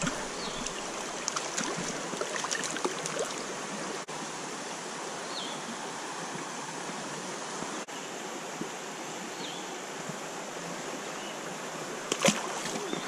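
Creek water flowing steadily, with a brief splash about a second before the end as a brook trout is let go back into the stream.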